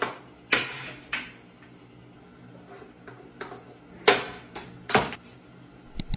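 A cat pawing at a toilet-paper roll and small objects on a tiled ledge: a series of short rustles and knocks, about eight of them, the loudest about four seconds in.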